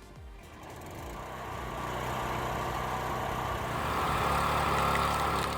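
Small petrol engine driving a homemade wood-processing machine, running steadily under load, with a rising grinding noise of the machine working through wood that is loudest near the end.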